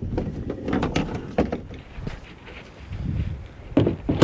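Knocks and clicks of hands working on a plastic kayak, handling its strap buckles and seat, with two louder thumps near the end.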